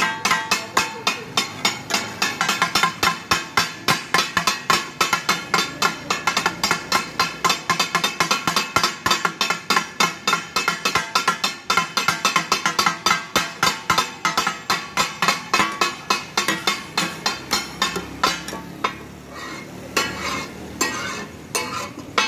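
Takatak being made: two steel spatula blades chopping and scraping mutton offal on a large flat steel griddle, a fast rhythmic metal clatter of several strikes a second. It thins out to scattered knocks near the end.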